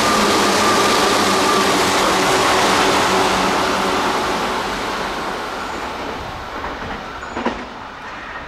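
Tobu 8000 series electric train running through a station at speed: loud wheel-and-rail noise with a steady whine, fading away over the second half as the train moves off. A single sharp click near the end.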